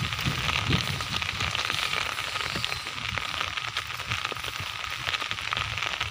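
Live carp flapping and slapping in a wet nylon net and in the pots as they are picked out by hand: a dense wet crackling with many quick slaps, over a low rumble.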